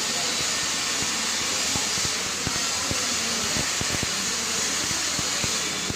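Electric welding arc burning: a steady hiss with irregular crackles and pops.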